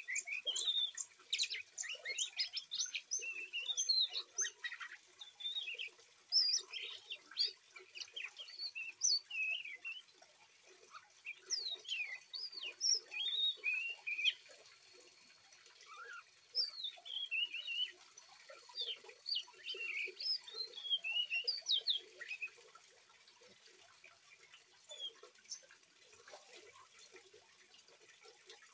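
Young oriental magpie-robin singing a rapid, twittering juvenile song of short sweeping chirps in bouts, thinning to a few notes after about twenty seconds, over the faint rush of flowing water.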